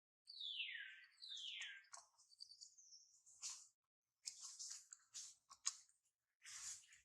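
Baby monkey giving two high-pitched calls that fall steeply in pitch, one after the other, followed by faint scattered clicks and rustles.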